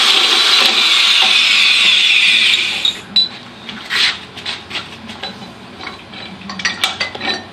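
A holesaw on a tube notcher cutting through 1.5-inch metal tubing with a loud, high, steady screech that stops about two and a half seconds in. A few scattered clinks and knocks follow.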